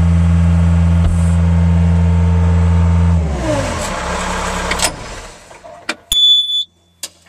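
Bobcat S130 skid steer's non-turbo Kubota four-cylinder diesel running steadily at high revs, then winding down and stopping about three seconds in. A short high electronic beep with a couple of clicks follows near the end.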